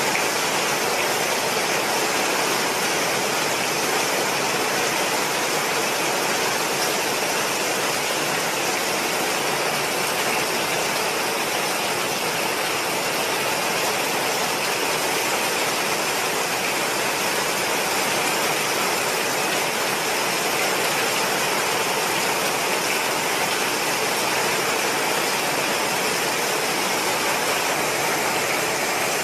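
Hurricane wind and heavy rain: a steady, dense rushing noise that does not let up.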